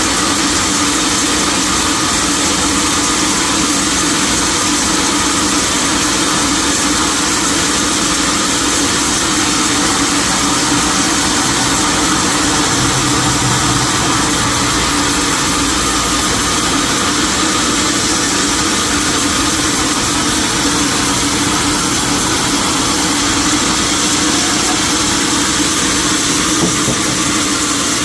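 Sawmill machinery running steadily: a constant loud mechanical hum with a hiss through the highs, with no pauses or changes.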